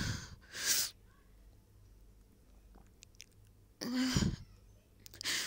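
A tearful woman sniffling and breathing. A sharp sniff comes about half a second in, a short voiced sigh about four seconds in, and another sniff near the end.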